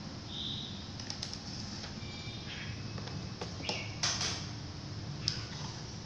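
Background ambience: several short, high bird-like chirps over a steady low rumble, with a few sharp clicks.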